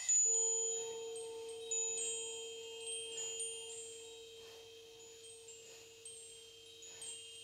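Chimes ringing: light metallic strikes, a few close together about two seconds in and again near the end, ring out over one long held low tone.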